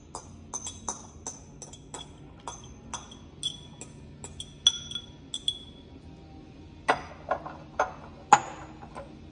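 A metal fork tapping and scraping against a cut-glass crystal bowl: quick, irregular clinks that ring briefly, as chopped celery is knocked out. From about seven seconds in come louder, duller knocks of the fork stirring in a glass mixing bowl.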